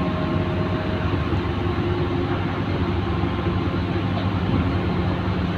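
Ferry diesel engines running steadily, a constant low drone with a hum, under an even rushing noise.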